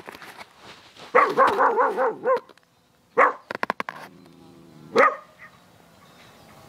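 Small dog barking in alarm at a strange dog approaching: a quick run of yapping barks about a second in, then single barks about three and five seconds in.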